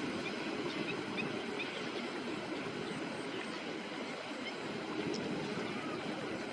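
Steady low rumble of a tractor plowing a field, with a few faint, short bird calls above it.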